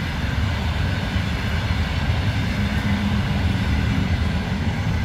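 Single-deck passenger coaches rolling past at speed: a steady rumble of steel wheels running over the rails.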